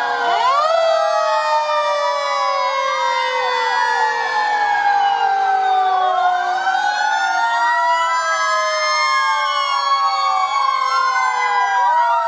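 Several fire truck sirens wailing at once, their pitches rising and falling out of step with one another, as the trucks drive slowly past.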